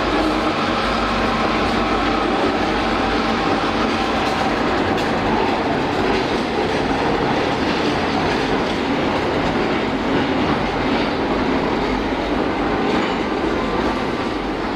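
Freight train rolling past: a steady, loud rumble and clatter of the cars' wheels on the rails.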